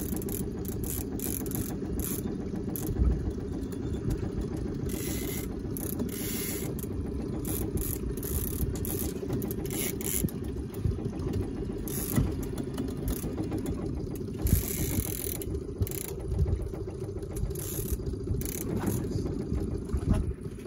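Boat's outboard motor running steadily at trolling speed, a continuous low drone.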